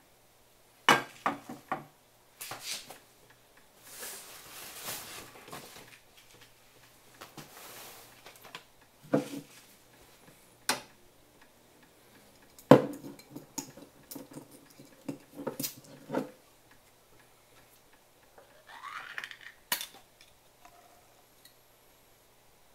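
Metal clanks and clatters of cookware on a portable gas stove: the wire grill net lifted off and an aluminium saucepan set down on the metal pot supports. A dozen or so separate knocks, the loudest about thirteen seconds in, with a short stretch of hissing noise near the start.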